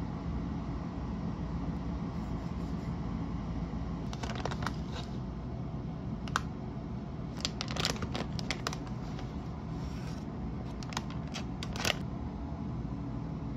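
Plastic sheet-mask pouch crinkling and clicking as it is handled and opened, with a few sharper snaps, over a steady low background rumble.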